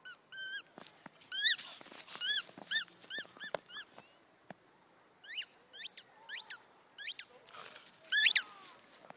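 A whippet puppy's short, high-pitched yelps in quick runs of several a second, the loudest near the end.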